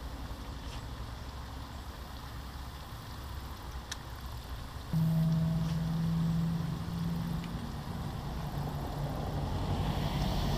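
Low rumbling outdoor noise, then a steady motor hum starts suddenly about halfway through and holds, like a nearby engine running.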